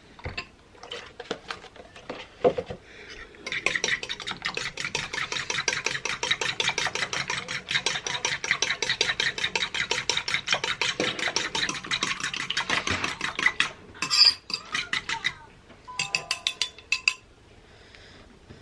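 A fork beating eggs seasoned with salt and pepper in a small bowl: a rapid, steady clinking of the fork against the bowl that begins a few seconds in and runs for about ten seconds. A few separate clinks follow near the end.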